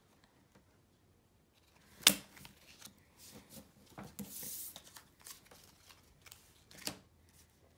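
Pokémon trading cards handled by hand: cards flicked through and squared into a stack, with light rustles and taps. A sharp click about two seconds in is the loudest sound, a brief sliding hiss follows a little past the middle, and another click comes near the end.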